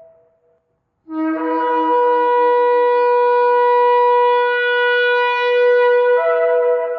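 Ram's-horn shofar blown in one long, steady blast beginning about a second in, after a moment of silence. It opens on a brief low note, jumps up to a higher held note, and its tone shifts near the end.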